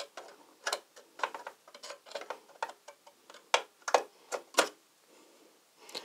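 Irregular sharp plastic clicks and taps, about a dozen over four seconds, from memory sticks being handled and lined up at the motherboard's memory slots.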